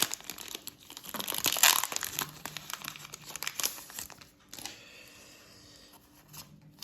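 Foil Pokémon booster pack wrapper crinkling and being torn open, loudest about a second and a half in; the crinkling dies down after about four seconds.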